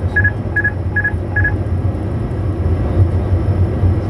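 A cockpit alert tone beeping four times in quick succession and stopping about a second and a half in, over the steady low rumble of the Bombardier Challenger 350's flight deck on approach.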